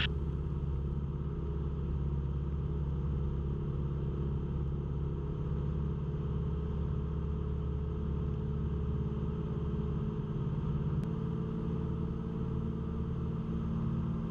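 Cessna 172's engine and propeller drone in flight, a steady low hum. A faint click comes about eleven seconds in, and the tone shifts slightly after it.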